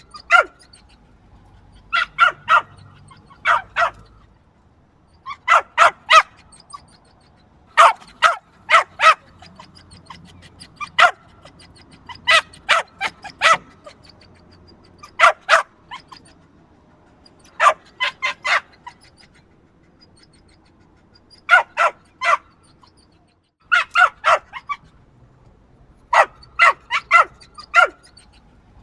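Small yappy dog barking: short, sharp, high barks in quick clusters of two to four, with pauses of a second or two between clusters.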